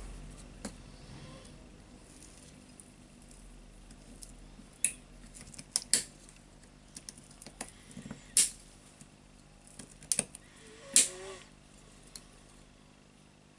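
Pliers working at the spring rings (circlips) on the tool holder of a Hitachi H45MR demolition hammer: sharp metallic clicks and clinks, spaced irregularly, with quiet between them.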